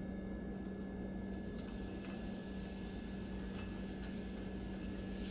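Chopped garlic going into a frying pan of warm vegetable oil, scraped in from a glass bowl with a silicone spatula and starting to sizzle faintly about a second in, over a steady low hum.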